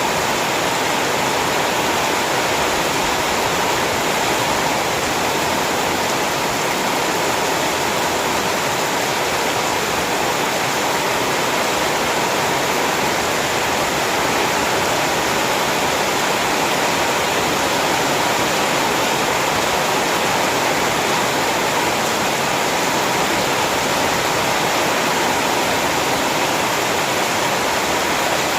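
Heavy rain falling steadily: a dense, even hiss with no breaks or separate drops standing out.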